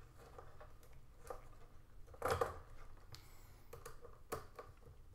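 Faint handling sounds of fitting a wire into a terminal and turning a small screwdriver: scattered light clicks and scrapes. The loudest is a short scrape about two seconds in, and a sharp click comes a little after four seconds.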